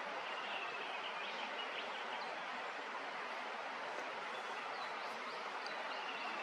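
Steady, even outdoor background hiss with a few faint, high bird chirps, mostly in the first two seconds and again around five seconds in.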